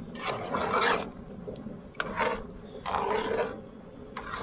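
Metal spoon scraping the inside of a cast-iron camp oven while stirring thick beef stew, in three separate scraping strokes.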